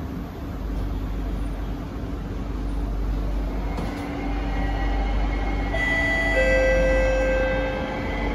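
Kawasaki–CSR Sifang C151B metro train heard from inside the car while running between stations: a steady rumble and hiss of the moving train. It grows a little louder, and a steady whine of several tones comes in about six seconds in.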